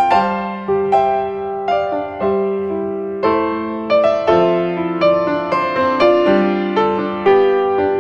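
Background piano music: a slow, gentle tune of notes and chords, each struck and then fading.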